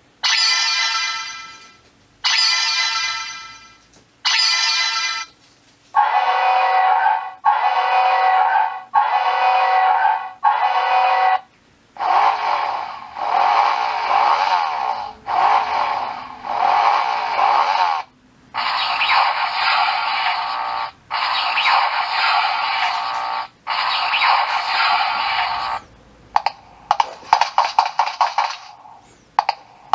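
Seiko RAIDEN NR539W digital alarm clock sounding a series of its electronic alarm tones: loud pitched beeping phrases of a second or two, repeated with short gaps. The pattern changes about every six seconds, ending in a quick run of chirps.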